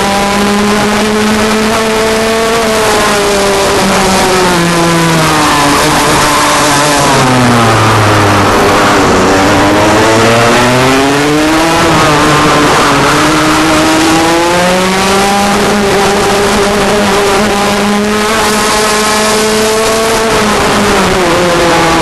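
Rotax Max 125 cc single-cylinder two-stroke kart engine at racing speed, heard close up from the kart. The revs fall for about five seconds to a low near the middle as the kart slows, then climb back up, dip briefly and rise again near the end.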